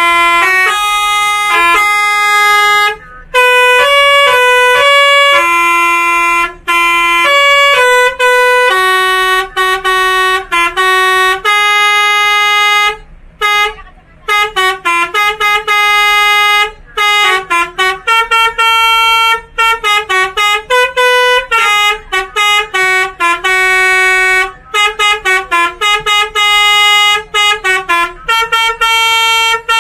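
A bus's telolet horn, a set of tuned air horns, playing a tune note by note. The notes are held in the first half, then come as quick short toots from about halfway through.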